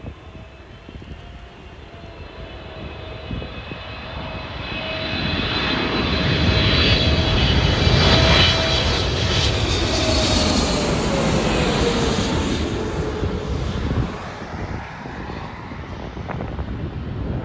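Jet airliner passing close by: the engine roar builds to a peak about eight seconds in, with a high whine on top, and a tone drops in pitch as the aircraft goes past, then the noise eases off.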